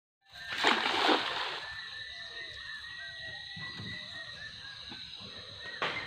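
A cast net thrown onto river water, landing with a splash about a second in. A steady high tone runs underneath, and there is a second brief splash near the end.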